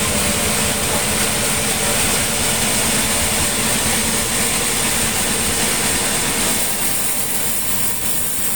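Sawmill machinery running steadily, its engine humming, with a high hiss over it that eases off about six and a half seconds in.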